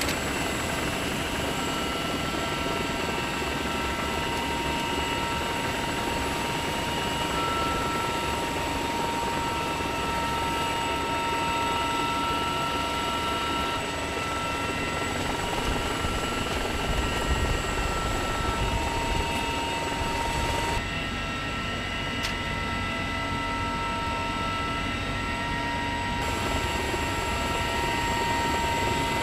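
Sikorsky CH-53E Super Stallion heavy-lift helicopter running steadily: the whine of its three turbine engines over constant rotor noise. The sound changes abruptly about 21 s in, when the high part drops away for a few seconds.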